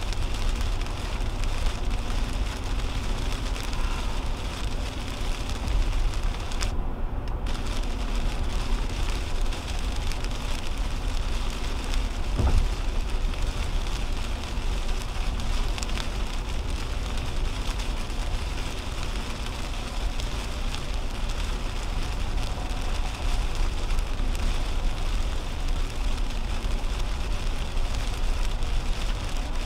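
Steady low road rumble and crackling rain hiss inside a 2010 Toyota Camry at highway speed on wet pavement, with rain hitting the windshield and body. The rain hiss briefly drops away about seven seconds in, and a single sharp knock sounds about twelve seconds in.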